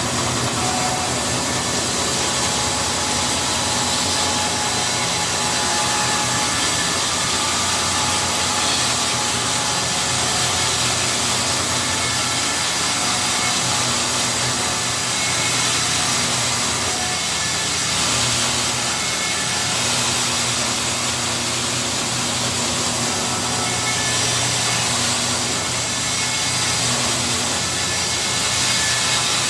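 Stationary power saw running steadily while ripping green lumber into strips for steam-bent boat ribs.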